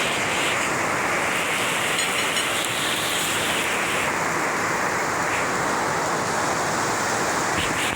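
Heavy rain falling as a steady, dense hiss.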